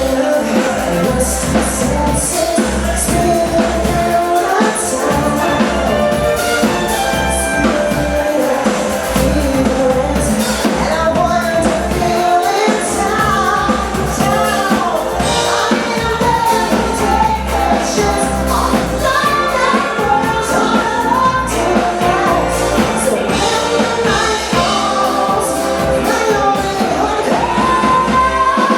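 Loud band music with singing over a pulsing bass beat.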